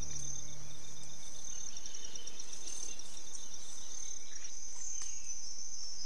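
Forest insects trilling, a steady high-pitched shrill with a fast pulsing texture. A low hum stops about a second in, and near the end a second high tone begins to slide slowly downward.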